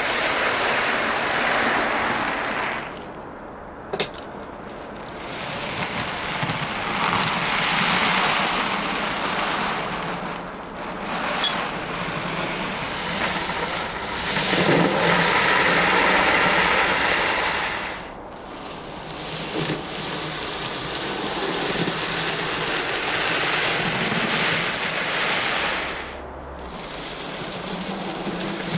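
Minitrains Brigadelok 009 narrow-gauge model locomotive running on a layout while hauling a loaded train of slate tipper wagons: a steady rushing rumble of the motor and the wheels on the track. It swells and fades several times as the train nears and moves away, with a single sharp click about four seconds in.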